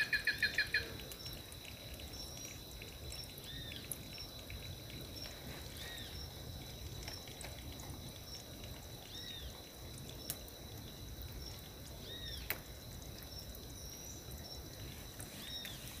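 Wild birds calling: a quick chatter of about six notes at the start, then a short rising-and-falling chirp about every three seconds. Under them run a steady high insect drone and a faint trickle of water seeping over rock, with two sharp clicks in the second half.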